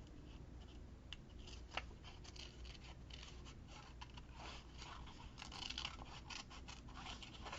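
Small scissors snipping through paper in short, quiet, irregular cuts, with light rustles as the paper is turned between snips.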